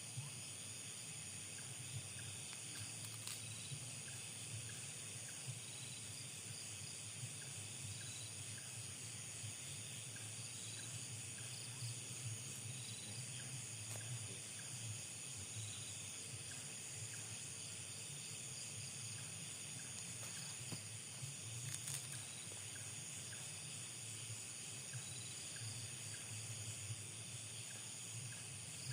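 Night insect chorus: a steady high-pitched drone of crickets and other insects, with a faint chirp repeating about once a second. A low steady hum lies underneath, and there are a few faint clicks.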